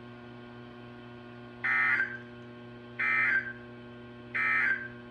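Emergency Alert System end-of-message data bursts on NOAA Weather Radio, closing the Required Weekly Test: three short bursts of digital data tones about 1.3 seconds apart. A steady electrical hum runs underneath.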